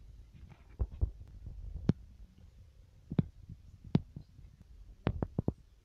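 Irregular soft thumps and sharp taps over a low rumble, with a quick cluster of taps near the end. This is handling noise from a phone being carried and turned around.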